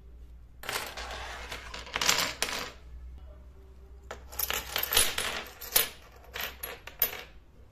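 Small ceramic plates clinking against each other in a stack, then clicked down one after another onto a wooden surface. The sound comes in two bursts of clatter with a few sharp clicks.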